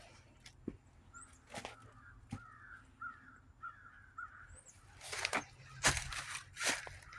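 A bird calls repeatedly in the background, about seven short calls in quick succession, with a few knocks and rustling handling noises that are loudest near the end.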